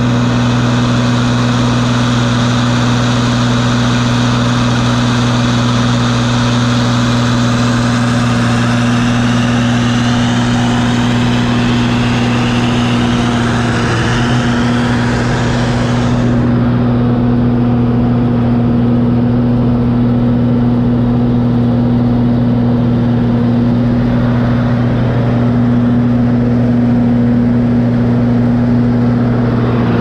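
Gleaner combine's engine running steadily with a deep, even hum under a rushing mechanical noise, heard close up from on the machine. The higher rushing noise drops away suddenly about halfway through.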